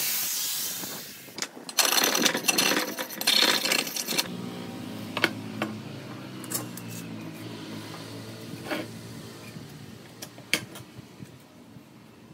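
Angle grinder cutting through a square metal pipe, easing off about a second in, then a louder spell of grinding from about 2 to 4 s. After that a few light metal clinks as cut pieces are laid on the board, over a low steady hum.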